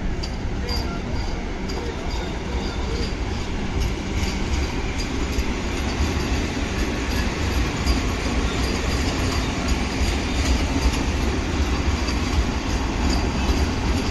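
Passenger train running on the rails: a steady rumble with faint clicks from the wheels over the track.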